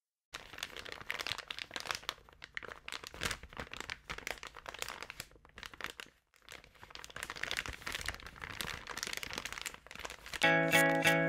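Dense underwater crackling picked up through the camera's housing, swelling and fading in surges with a brief lull just past the middle. Background music with a steady beat comes in near the end.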